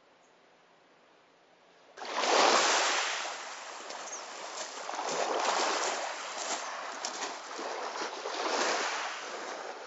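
Small waves washing onto a pebble shore. The sound starts suddenly about two seconds in and swells and eases about every three seconds.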